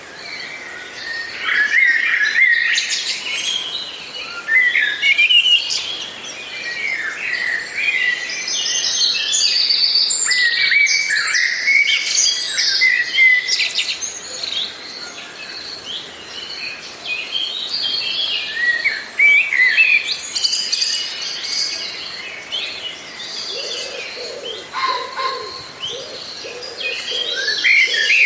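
A chorus of songbirds chirping and trilling, several birds overlapping. Near the end a lower, repeated cooing or hooting call joins in.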